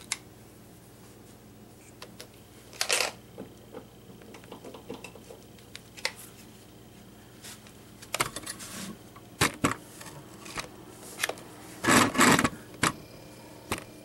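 Handling noise of a clamp meter and heavy battery cables: irregular clicks, knocks and rustles as the meter's jaws are opened and clamped around a cable, loudest a couple of seconds before the end. A faint steady hum comes in near the end as the portable fridge's compressor starts up.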